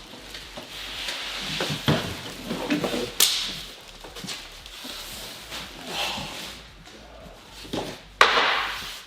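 Heavy welder being lifted out of its cardboard shipping box: rustling, scraping and several knocks of cardboard and wood. The sharpest knock comes about three seconds in, and a loud scrape near the end.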